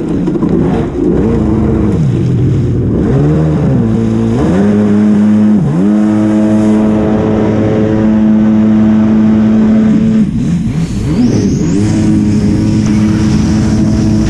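Yamaha WaveRaider jet ski's two-stroke engine running under throttle, its pitch dropping and climbing several times as the throttle is eased off and opened again, and holding steady at speed in between.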